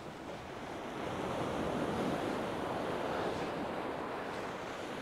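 Surf breaking on a shingle beach. A wave swells about a second in and rushes up the pebbles, then eases off, with some wind on the microphone.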